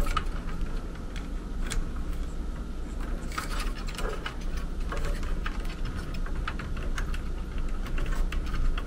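Light, irregular clicks and small rattles of wires and push-on spade terminals being handled and fitted onto an HVAC control board. A steady low hum runs underneath.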